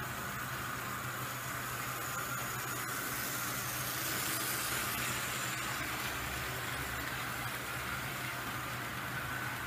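HO-scale model electric locomotive pulling a rake of container flat wagons along the track: a steady electric-motor hum with wheels rattling on the rails, swelling in the middle as the train passes close.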